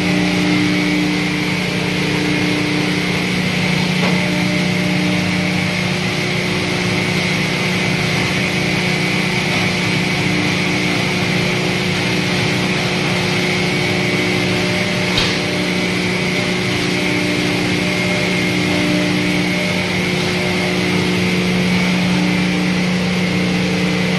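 Dual-shaft wood chip hammer mill running steadily under load: a loud, even machine drone with a constant hum and a hiss of crushing noise over it. A single short tick sounds about fifteen seconds in.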